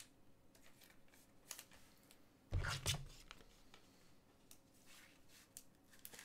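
Trading cards and card holders being handled on a table: faint rustling and light clicks, with one louder thump about two and a half seconds in.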